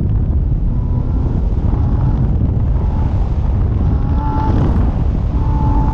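Wind buffeting an outside-mounted microphone, a loud low rumble, over a 2015 Porsche Cayman S's flat-six engine pulling at speed. Short tyre squeals come about four seconds in and again near the end.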